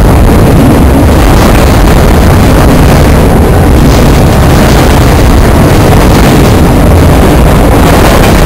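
CSX autorack freight cars rolling past at close range: a loud, steady rumble of steel wheels on the rails.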